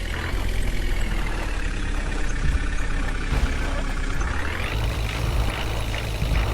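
Heavy diesel engine of a tractor or backhoe loader running under load; its revs sag slightly, then climb sharply about four and a half seconds in.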